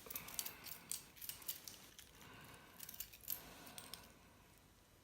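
Metal links of a Leatherman Tread tool bracelet clinking and its clasp clicking as it is fastened: a run of light metallic clicks and rattles that dies away after about four seconds.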